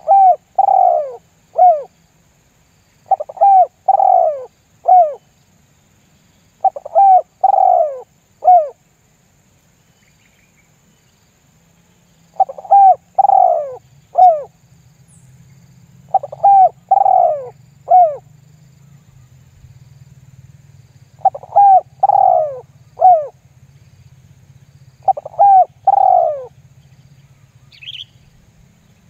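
Spotted dove (tekukur) cooing its 'lambung guk' lure call: a three-note phrase of two longer coos and a short clipped one, repeated seven times a few seconds apart. A single brief, higher chirp comes near the end.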